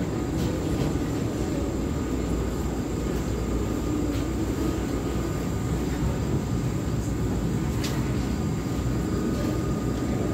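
Steady low rumble of airport apron and aircraft noise, heard from inside the terminal through the glass, with a faint steady high whine above it and one brief click about eight seconds in.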